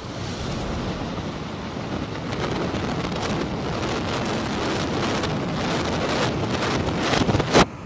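Controlled demolition of a brick high-rise heard in reverse: a dense rumble of collapsing masonry builds steadily, sharp cracks from the explosive charges come more and more often toward the end, and the loudest crack near the end cuts off suddenly.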